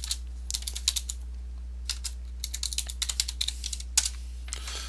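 Typing on a computer keyboard: irregular bursts of keystrokes with short pauses between them, over a faint steady low hum.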